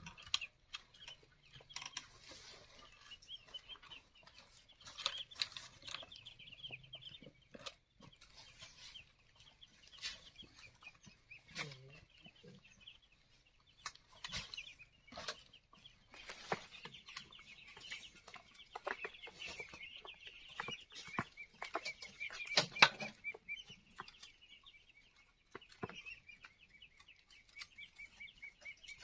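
Farmyard chickens clucking, with scattered knocks and taps, the loudest one about two-thirds of the way through. A steady high chirring runs underneath for most of the stretch.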